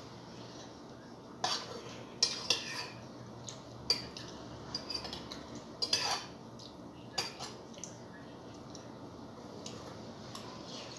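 Metal cutlery clinking and scraping against a ceramic bowl while eating noodles: irregular sharp clinks, busiest in the first two-thirds, over a steady low background hum.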